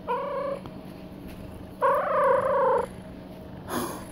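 Siamese cat growling, a short low growl and then a longer one, held at one pitch with a pulsing rasp, followed by a brief noisy burst near the end. An angry, possessive growl from a cat guarding a toy it won't give up.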